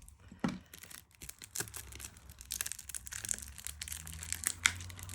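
Plastic wrapping on a tarot deck box crinkling and tearing as it is pulled off by hand, a run of small irregular crackles.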